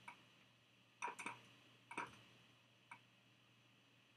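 A handful of sharp computer mouse clicks, three close together about a second in, then single clicks about a second apart, over near-silent room tone.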